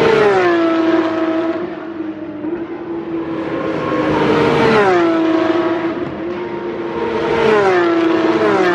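Porsche 911 GT3 Cup race cars' flat-six engines at full throttle passing close by on the straight, three in turn: one at the start, one near the middle and one near the end, each engine note dropping in pitch as the car goes by.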